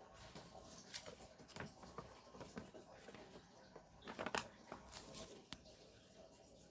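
Slime being squeezed and handled by hand: quiet, scattered little clicks and crackles, with a louder run of squelchy pops about four seconds in.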